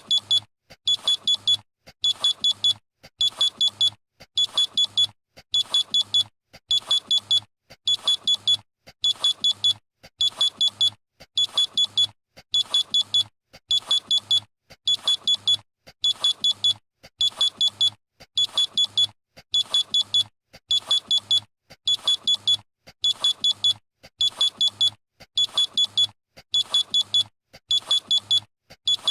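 Electronic alarm beeping: a high-pitched beep in quick groups of four, each group repeating about once a second.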